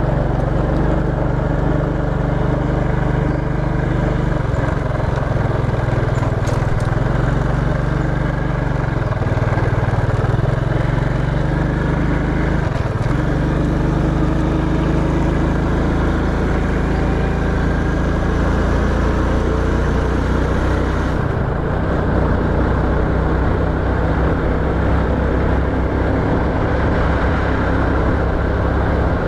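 Small motorcycle engine running steadily on the move, mixed with wind and road noise; the engine note shifts a couple of times as the speed changes.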